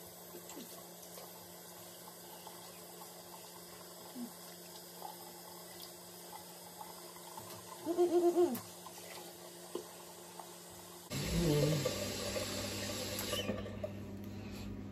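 Bathroom sink tap turned on about eleven seconds in, water rushing into the basin, loudest for the first couple of seconds and then running on more softly.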